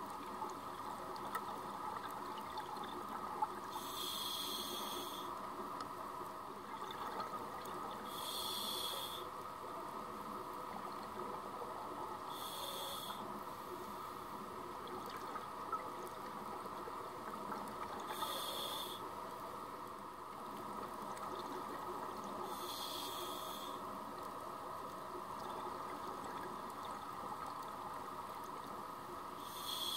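Scuba diver breathing through a regulator underwater: a hissing rush of exhaled bubbles about every four to six seconds, over a steady muffled underwater hum.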